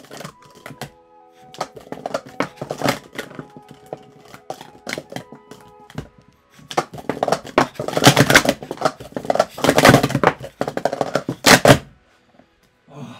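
Plastic sport-stacking cups from a badly worn-in set clacking in a fast timed cycle stack: a dense run of sharp clicks lasting about five seconds that stops abruptly near the end. Before it, lighter scattered cup clicks over background music.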